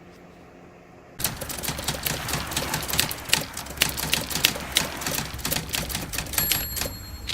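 A gas furnace starting its ignition sequence: about a second in, a motor starts with a low steady hum and a fast, uneven clatter of clicks and rattles. A faint high whine joins near the end.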